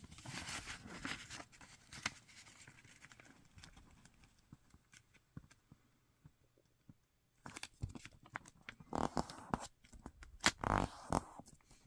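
A sheet of origami paper rustling as it is folded in half and creased. It is soft at first and goes quiet for a few seconds in the middle, then several short brushing strokes come near the end as the fold is pressed flat.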